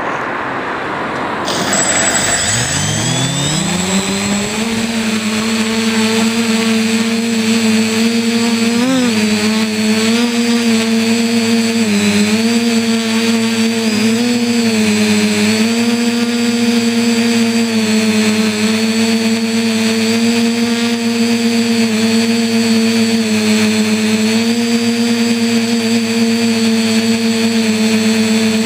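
Motors and propellers of a radio-controlled quadcopter spinning up about two seconds in, rising steeply in pitch, then running at a steady pitch in flight with small wavers as the throttle changes, heard close up from a camera mounted on the quad.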